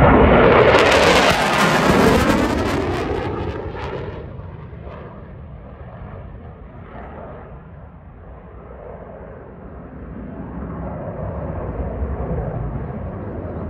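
CF-18 Hornet fighter jet, its twin afterburning turbofan engines, passing overhead. Loud jet noise with a sweeping sound as it passes, fading over a few seconds to a distant rumble that swells again near the end.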